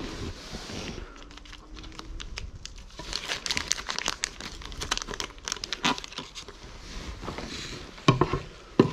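A foil cat-food pouch crinkling and crackling as it is handled and cut open with a kitchen knife, densest in the middle. A couple of sharp knocks come near the end.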